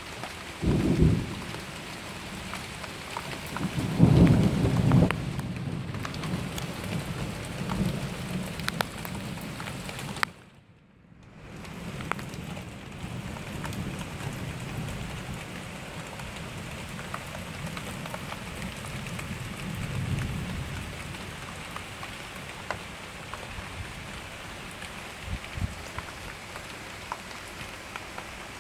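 Steady rain falling, with rumbles of thunder about a second in and again around four seconds in, the second the loudest, and fainter rumbles later. The sound briefly drops almost to silence about ten seconds in.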